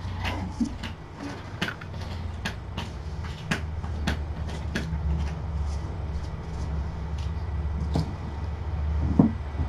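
Irregular light clicks and knocks of objects being handled as a person tidies a room, over a steady low hum, with a louder knock near the end.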